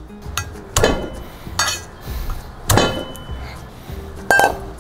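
Chef's knife crushing garlic cloves on a wooden chopping board: a few sharp knocks with a light metallic ring, roughly a second apart, over soft background music.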